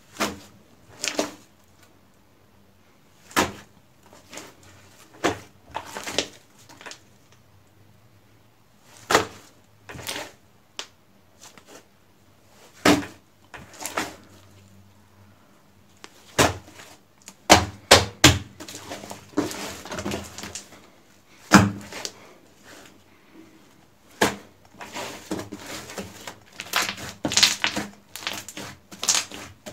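Thick slime stretched into giant bubbles and popped by hand: a series of sharp pops and wet snaps a second or two apart, then a dense run of crackling and clicking near the end as the slime is pressed flat.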